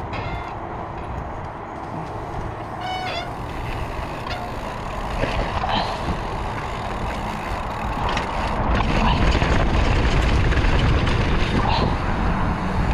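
Wind rushing over the rider's camera microphone and mountain bike tyres rolling on a dirt trail during a descent, getting louder as speed builds about eight seconds in.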